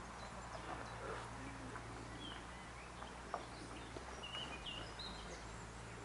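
Outdoor field ambience: scattered short bird chirps over a steady low rumble of wind, with a single sharp click about three seconds in.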